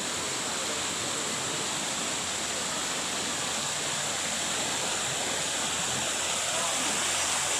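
Shallow stream flowing over rocks and stones, a steady wash of running water.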